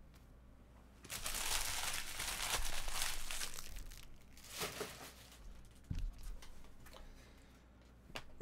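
Plastic wrapping crinkling and crumpling for about three seconds, followed by a few light knocks and rustles.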